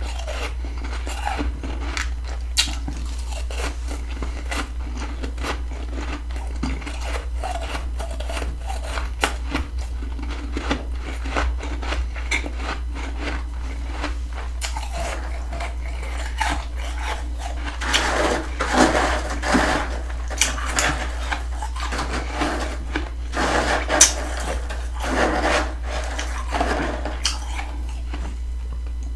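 Fluffy freezer frost being bitten and chewed close to the mouth: a stream of small crisp crunches and crackles, with longer, denser bouts of crunching in the second half.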